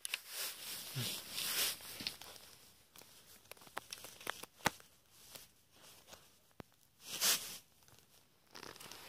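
Rustling and handling noise with a few scattered sharp clicks, loudest as short bursts early on and about seven seconds in; no gunshot.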